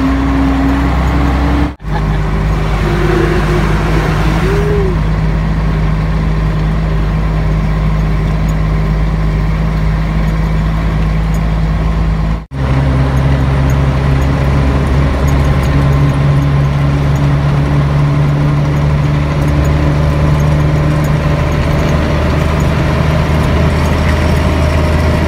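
Scania LK truck's diesel engine running steadily under way, heard from inside the cab with road noise. Its pitch steps slightly between segments, and the sound drops out briefly twice.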